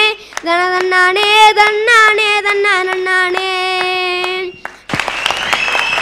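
A boy singing a drawn-out Tamil line into a microphone, ending on a note held steady for about a second that then cuts off. About five seconds in, an audience breaks into applause.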